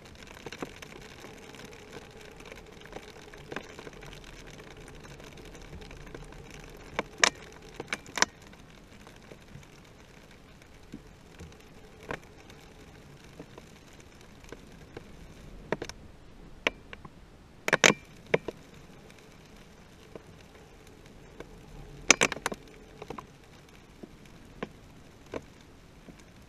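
Irregular sharp clicks and taps on the waterproof housing of a GoPro Hero 3+ riding a high-altitude balloon payload, over a low steady hiss. The loudest taps come in short clusters, about a third of the way in, a little past the middle, and again about two-thirds of the way through.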